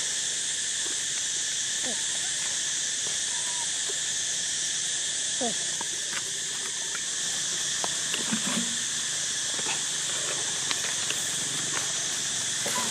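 Steady, high-pitched drone of insects, with a few short squeaks from baby macaques at play, about two and five seconds in.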